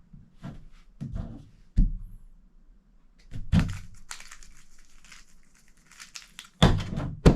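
A 3x3x3 Rubik's Cube being turned rapidly by hand in a speed-solve: a quick run of plastic clicking and rattling, with scattered thunks before it and the loudest thunks near the end.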